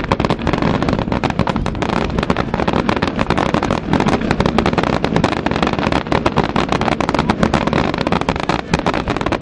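Fireworks display at full intensity: a dense, unbroken string of bangs and crackles as many rising comets and bursting shells go off together.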